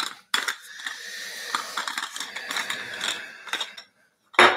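Threaded parts of an Outin Nano portable espresso maker being twisted by hand: a click, then about three seconds of small ratcheting clicks and scraping, then a sharp knock near the end.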